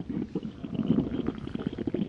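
Human stomach growling from hunger: a continuous run of low, irregular gurgling rumbles full of rapid small crackles.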